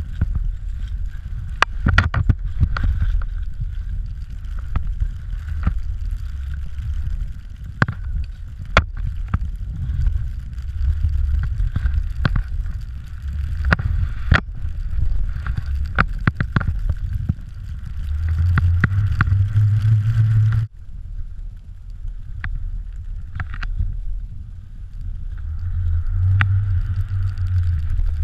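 Wind rushing over an action camera's microphone during a fast powder-ski descent: a loud low rumble with frequent sharp clicks and knocks from the skis, poles and camera mount. The rush cuts off abruptly about two-thirds of the way through, then builds again.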